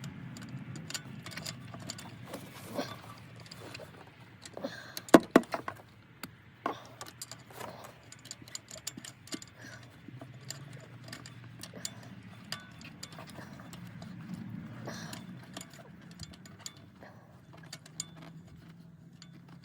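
Light metal clicks and taps of a socket and extension against the engine as a fuel rail plug is being worked into its threads, with a cluster of loud clicks about five seconds in. A low steady hum runs underneath.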